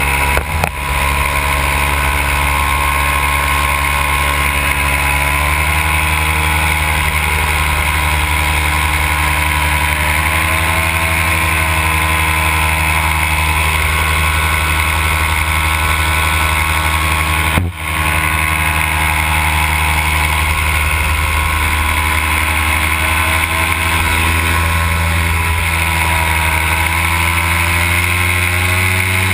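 Simonini two-stroke paramotor engine driving its propeller in flight, running steadily with its pitch wavering slightly as the throttle shifts. The sound drops out for an instant twice, shortly after the start and about two-thirds of the way through.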